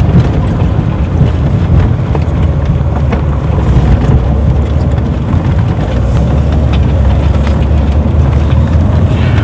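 Car driving on a dirt road, heard from inside the cabin: a steady low rumble of engine and tyres on the unpaved surface.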